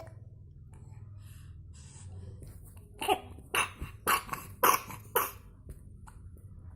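A baby coughing: a quick series of about six sharp coughs starting about three seconds in, the cough of a chest cold.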